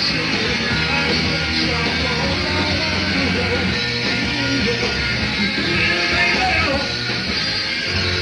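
Live rock band playing a fast mod-revival garage rock song at full volume, recorded in a club.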